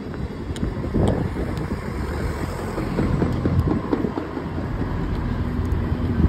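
Wind buffeting a phone microphone outdoors, a gusty low rumble, mixed with the sound of street traffic.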